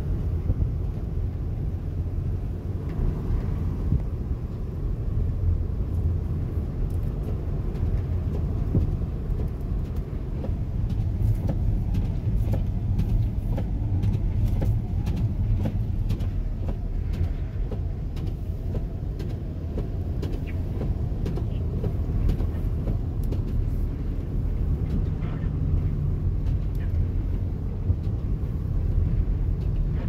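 Steady low rumble of a U-Haul GMC box van driving on a snow-covered road, with engine and tyre noise heard from inside the cab and faint scattered ticks on top.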